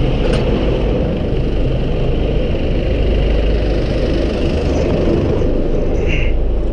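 Dense city traffic heard from a moving bicycle: engines running close by, including a double-decker bus right alongside, over a steady low wind rumble on the microphone. A brief high squeal comes about six seconds in.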